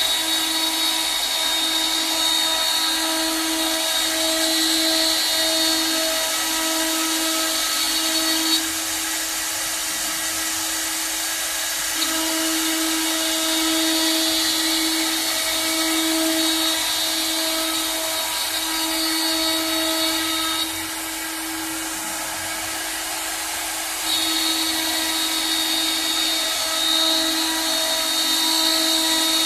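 A three-spindle CNC wood lathe running, turning wooden balusters. It gives a steady, pulsing mechanical hum, with a higher whine that drops out about 8 s in and again about 21 s in, returning each time a few seconds later.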